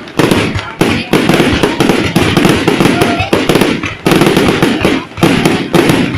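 Fireworks display going off: a dense, loud string of bangs and crackles, with brief lulls about a second in, about four seconds in and just after five seconds.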